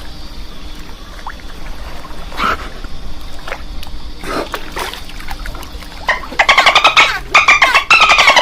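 Light splashing water, then, about six seconds in, a dolphin gives a loud, rapid pulsed chattering call lasting over two seconds, its pitch falling at the end.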